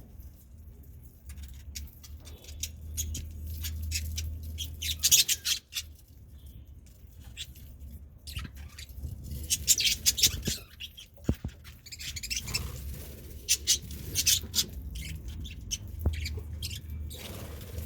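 Budgerigars chirping in clusters of short, sharp high-pitched calls, with a steady low hum underneath.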